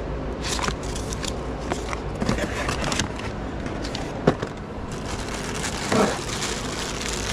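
Crinkling and rustling of packaging being handled: a foil knife sleeve and cardboard, then plastic bubble wrap in a storage tote, with irregular sharp crackles and a click about four seconds in, over a low steady hum.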